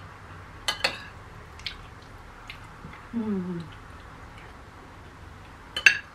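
Forks and spoons clinking against ceramic plates a handful of times while eating, the loudest clinks near the end. About three seconds in there is a short low hum that falls in pitch.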